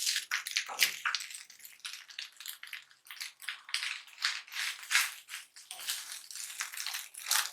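Spatula stirring and scraping egg fried rice around a hot non-stick pan: quick, irregular scraping strokes, several a second.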